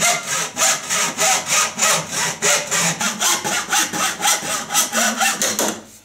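Hand hacksaw cutting through black plastic pipe clamped in a vise: quick, even back-and-forth rasping strokes, about three to four a second, that stop just before the end as the cut is finished.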